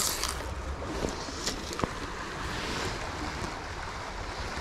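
River water running and lapping, with a few light splashes and ticks, and a low rumble of wind on the microphone.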